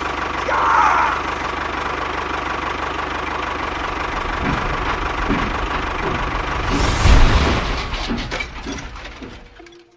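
An engine running steadily with a rough, knocking rumble. It swells louder about seven seconds in, then fades away near the end.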